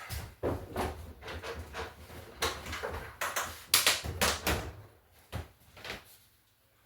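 Handling noise: a run of knocks, clicks and scrapes as a 1/10-scale RC truck is moved about in a wooden display case, the loudest knocks about three to four and a half seconds in.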